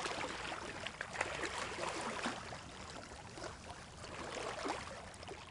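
Kayak paddles dipping in water: a steady wash of small splashes, drips and trickling that fades out near the end.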